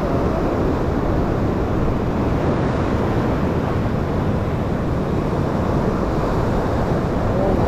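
Ocean surf breaking and washing over the rock ledge, a steady rushing noise.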